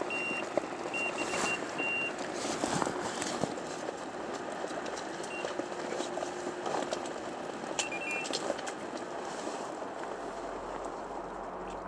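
Electronic carp bite alarm giving short, high beeps, signalling a fish taking line on a run, over steady rain. The beeps come in a cluster over the first couple of seconds and again briefly around eight seconds in.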